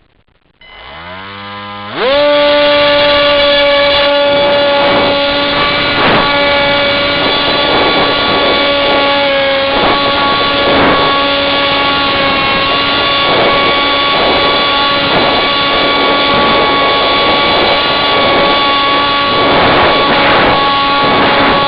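Electric motor and propeller of a Firebird Scout RC plane spooling up in a rising whine over about a second and a half, then running steadily at a high, even pitch, heard from a camera riding on the plane. Occasional brief swells of noise sound over it.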